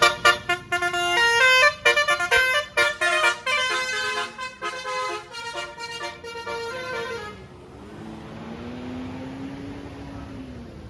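Bus 'telolet' multi-tone air horn with roof-mounted trumpets playing a quick tune of stepped notes for about seven seconds, then stopping. A quieter steady rumble with a low tone that rises and falls follows.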